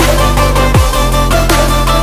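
Electronic background music with a heavy, syncopated beat: deep kick drums that fall in pitch over a steady bass line.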